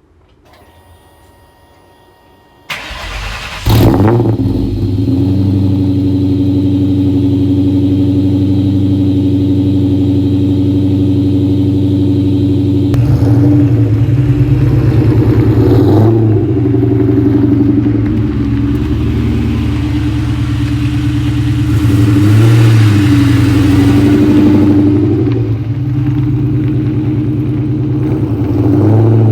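2003 Ford Mustang SVT Cobra's supercharged 4.6 L V8 starting: a brief crank a few seconds in, then the engine catches and settles into a loud, steady idle, with a few revs later on.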